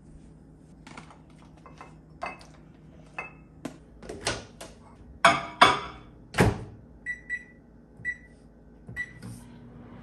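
Whirlpool over-the-range microwave being loaded: small clicks and knocks of dishes being handled, then loud knocks as the door is opened and shut. Four short keypad beeps follow, and the oven starts running with a steady hum near the end.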